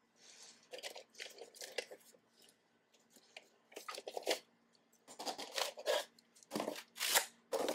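Cardboard packing pieces being pulled off a bike rack part and handled, in several short, irregular bursts.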